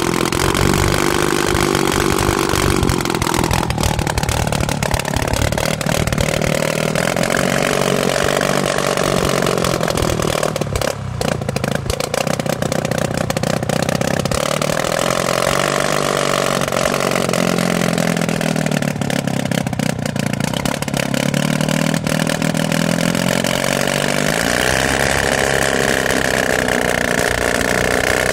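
A KB-2 gyrocopter's McCulloch flat-four two-stroke engine runs with the propeller turning, its speed rising and falling. It dips briefly about eleven seconds in and climbs to a higher speed near the end.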